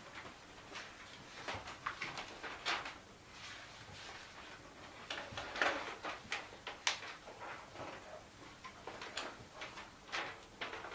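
Sheets of printed paper rustling as they are leafed through and pulled from a stack, in a run of short, irregular crinkles, loudest a little past the middle.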